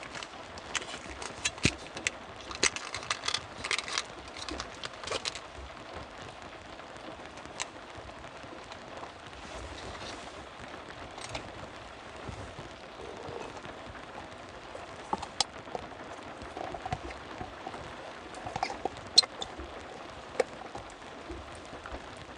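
Steady rain falling, with a cluster of sharp ticks and knocks in the first few seconds and scattered single ticks after.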